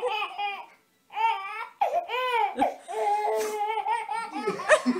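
A baby laughing and squealing in long, high-pitched bouts, with a brief pause about a second in.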